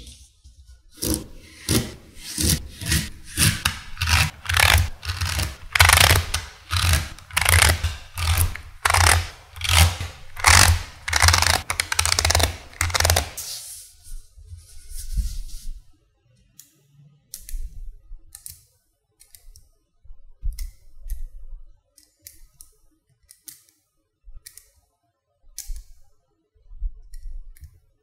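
Small magnetic balls clicking and snapping together as rows are pressed onto a structure of them by hand: a run of loud clicks with a dull knock under each, about two a second, for the first half, then a brief rubbing and sparser, quieter clicks.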